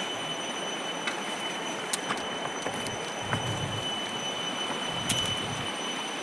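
River water rushing steadily, with a thin, steady high whine over it and a few faint clicks.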